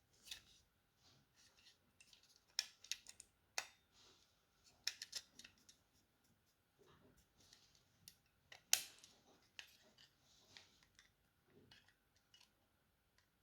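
Faint, scattered small plastic clicks and scrapes as the parts of a Logitech M185 mouse are handled and taken apart, with one sharper click a little past the middle.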